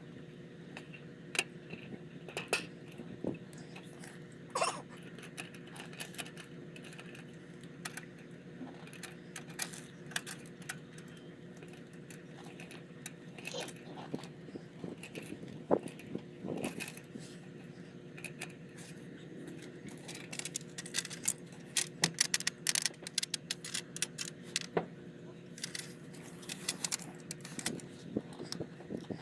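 Small tools and parts being handled: irregular light clicks, taps and rattles over a steady low hum. The clicks come thicker and faster in the last third.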